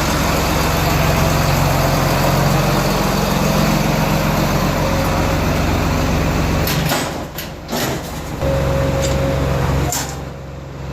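John Deere 8320 tractor's diesel engine running steadily. Near the end there are a few sharp knocks, and the engine sound drops out twice, briefly.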